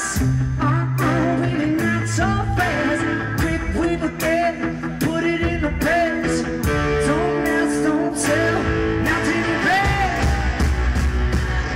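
Live rock played loud by a guitar-and-drums duo: a distorted electric guitar riff on an SG-style guitar over driving drums and cymbals.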